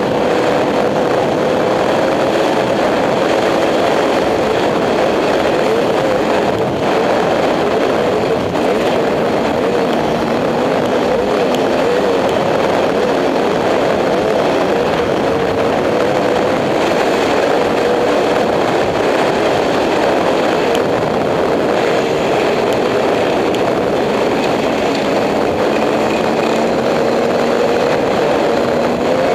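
A dirt bike's engine runs steadily at a fast trail pace, its pitch wavering slightly as the throttle changes. A constant rush of wind and road noise lies over it.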